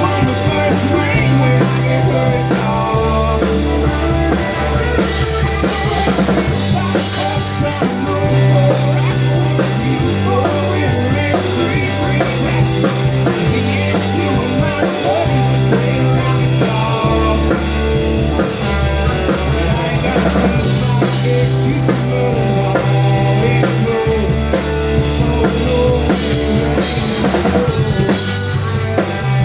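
A rock band playing live in rehearsal, led by a drum kit, with low notes that change every two seconds or so under the drums and other instruments.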